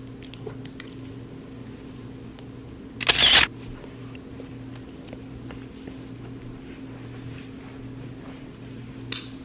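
Dog harness being handled and fastened over a steady low room hum. About three seconds in there is a loud, scratchy noise lasting half a second, and a sharp click comes near the end.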